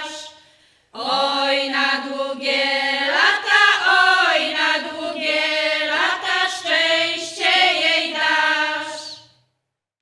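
A women's folk vocal group sings a Polish folk song unaccompanied. A phrase dies away right at the start, a brief pause follows, and then the group sings one last stretch of about eight seconds that stops shortly before the end.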